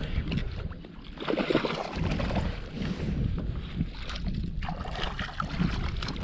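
A bass being landed into a kayak: irregular knocks, rustling and water noise from handling the fish and gear, over a low rumble of wind on the microphone.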